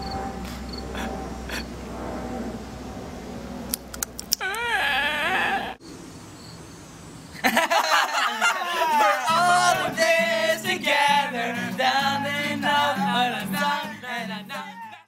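About halfway in, an acoustic guitar starts to be strummed, with voices singing along over its chords. Before that, a brief wavering, warbling voice-like sound comes about four seconds in.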